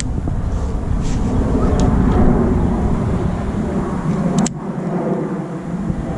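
Wind buffeting the microphone as a low, unsteady rumble, with a single sharp click about four and a half seconds in.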